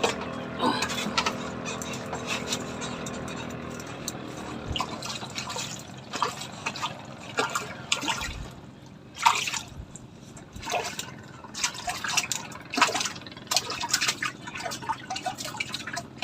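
Water splashing and dripping in short, irregular bursts. A boat engine runs steadily at first and stops about four seconds in.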